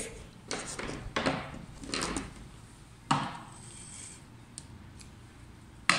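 Handling noise at a sewing-machine table: cloth rustling as the sewn pieces are pulled free, a few light knocks with the sharpest about three seconds in, and a small snip of scissors near the end as the thread is cut.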